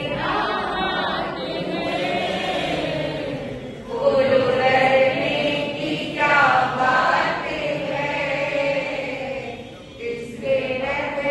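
Jain devotional bhajan sung by several voices together in long held notes, with a short lull just before the end.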